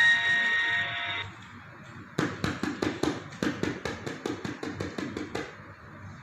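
Bell-like music playing from a phone speaker cuts off about a second in. A second later comes a quick run of sharp taps, about six a second for some three seconds.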